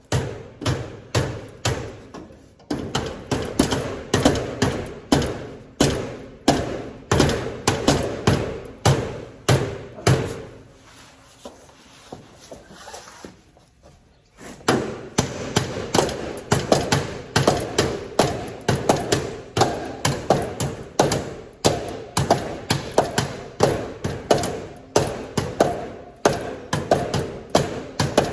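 Hammer blows on a metal part, about two a second, each with a short metallic ring. The blows stop for a few seconds just before the middle, then start again at the same pace.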